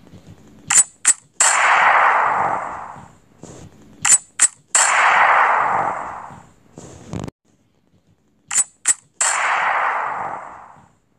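A sound effect played three times: each time two sharp clicks in quick succession, then a loud hissing burst of noise that fades out over about two seconds.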